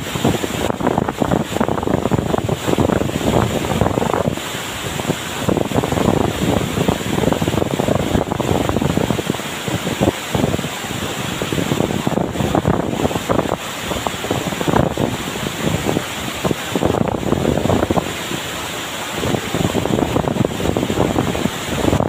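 Tiu Kelep waterfall pouring into its pool close by, a loud steady rush of falling water, with wind buffeting the microphone in uneven gusts.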